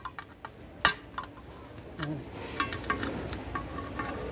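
Metal hand tools working at a bicycle lock being broken open: a few faint clicks, one hard metal tap about a second in, then lighter clicking and rattling of metal.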